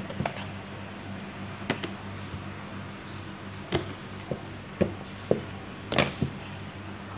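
Light taps and knocks of a plastic dough scraper and hands on a silicone mat and a digital kitchen scale as bread dough is cut into pieces and weighed: about seven scattered knocks, the loudest about six seconds in, over a steady low hum.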